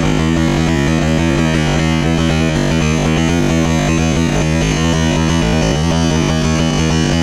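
Loud background music with synthesizer, guitar and a steady rhythmic bass line.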